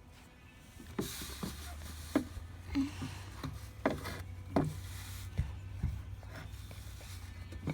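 Kinetic sand being handled: irregular soft taps and rubs, over a low steady rumble that begins about a second in.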